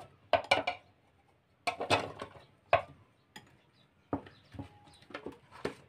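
Chunks of raw onion dropping into a clear plastic food-chopper bowl, with the glass bowl and chopper knocking against each other as they are handled. Scattered sharp taps and clicks come in several small groups.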